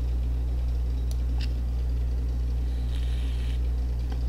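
Steady low electrical hum of the recording's background, with a couple of faint mouse clicks about a second in.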